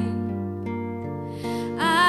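Acoustic guitar accompaniment ringing on sustained chords in a pause between sung lines of a country song, with a quick breath in near the end as the singer's voice comes back in.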